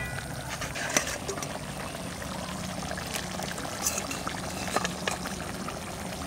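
A metal spoon scraping and clinking against a steel bowl of cooked chicken pieces, a few sharp clicks over a steady hiss.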